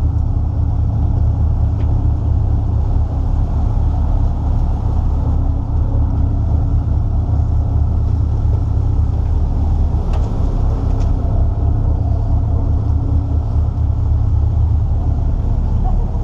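Boat engine running steadily, a loud low drone. A few faint clicks about two, ten and eleven seconds in.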